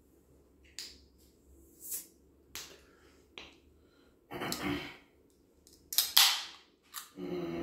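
Fingers picking and clicking at the pull tab of a tall aluminium sparkling-water can: several light clicks, then about six seconds in a sharp crack with a short hiss as the tab breaks the can open. A voice breaks in near the end.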